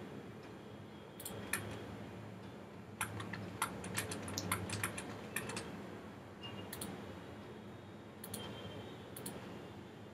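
Scattered clicks of a computer mouse and keyboard, bunched most closely from about three to five and a half seconds in, over a faint low hum.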